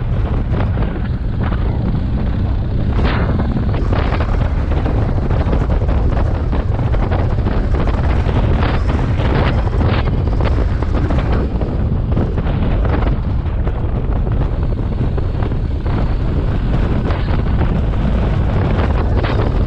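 Wind buffeting the microphone of a camera riding on a BMW R 1250 GS motorcycle: a loud, steady low rumble broken by frequent short gusts. The bike's boxer-twin engine and road noise run underneath.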